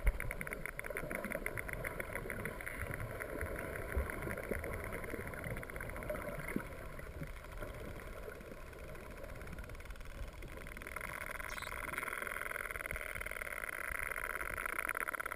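Underwater sound of a steady buzzing drone, growing louder over the last few seconds, with one short bending whistle from melon-headed whales about eleven and a half seconds in.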